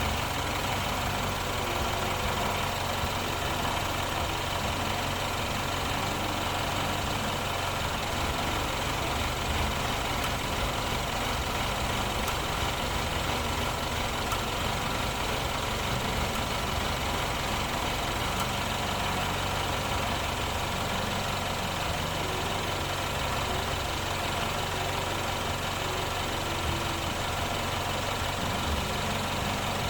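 A 2015 BMW's engine idling steadily while it is checked for a misfire.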